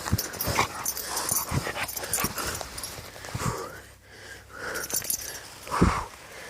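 A five-month-old Dogo Canario (Perro de Presa Canario) puppy vocalising and breathing hard during a play attack, in a string of short irregular sounds with a heavier burst near the end.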